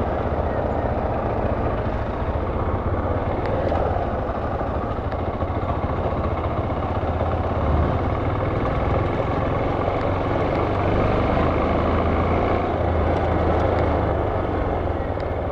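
Police patrol motorcycle running at a steady riding speed, its engine hum mixed with constant wind and road noise.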